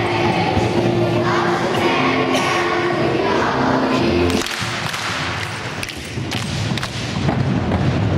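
Children's choir singing with instrumental accompaniment; the song ends on a held final chord a little past halfway. It is followed by scattered knocks and thuds.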